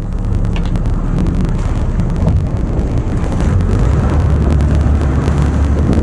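Boat engine running steadily under wind buffeting the microphone: a loud, even low rumble with a crackle on top.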